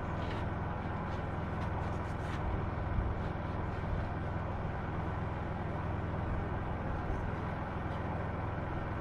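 A steady low hum, like an engine or motor running, with a few faint light taps.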